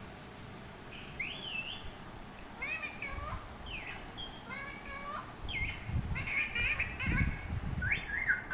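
Parrot chirping and whistling in a quick run of short, gliding calls, starting about a second in.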